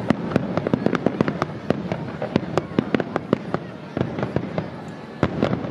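Aerial fireworks bursting overhead: a dense, irregular run of sharp bangs and crackles, several a second.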